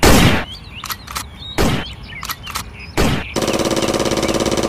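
Gunfire sound effects: three single shots, then a rapid burst of automatic fire about a second and a half long near the end.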